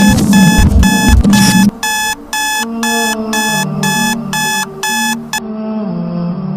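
Phone alarm beeping, about two beeps a second, until it is switched off about five seconds in. Over the first second and a half there is heavy low bumping and rustling.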